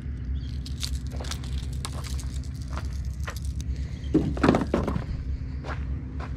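Footsteps and scuffs on a rocky shore: scattered irregular clicks and knocks over a steady low rumble, with one louder scrape or rustle about four seconds in.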